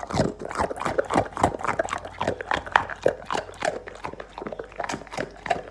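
Dog eating food off a tiled floor close to the microphone: rapid, irregular wet chewing and lip-smacking clicks, several a second.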